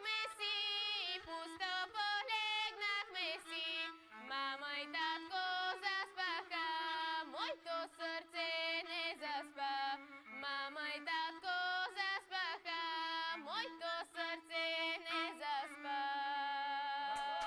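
A girl singing a northwestern Bulgarian folk song solo, the melody full of wavering, ornamented turns, ending on a long held note near the end.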